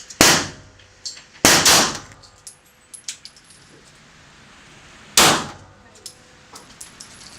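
Pistol shots: one at the start, a quick pair about a second and a half in, and another about five seconds in, each sharp and loud, with fainter clicks between.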